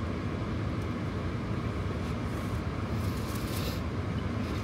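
Steady low rumble of background room noise with a constant low hum, and a brief high hiss about three seconds in.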